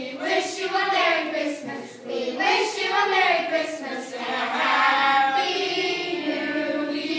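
A group of voices, children's among them, singing together, ending on a long held note over the last couple of seconds.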